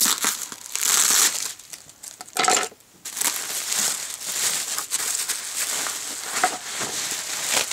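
Plastic bubble wrap crinkling and rustling as it is pulled off and unwrapped by hand, in uneven bursts with a brief pause just before three seconds in.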